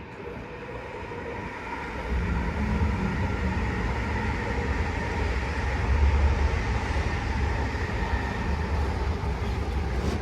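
A low mechanical rumble with a faint steady whine, growing louder about two seconds in.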